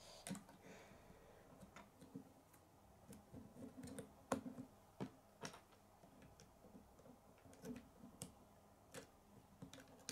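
Plastic K'nex rods and connectors clicking as they are handled and snapped into place, about a dozen sparse, irregular clicks.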